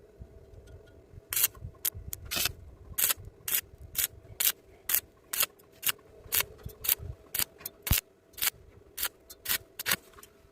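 A hand tool scraped in quick back-and-forth strokes over metal, about two strokes a second, starting about a second and a half in, with a faint steady hum underneath.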